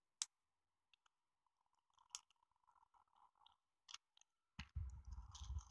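Small clear plastic parts bag crinkling and crackling as it is handled, in scattered crackles at first that grow denser near the end, joined by a low rumble of handling.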